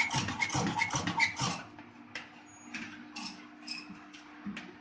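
Thin stainless-steel sheet metal rattling and clanking as it is handled, then a few separate sharp clicks, over a steady low hum.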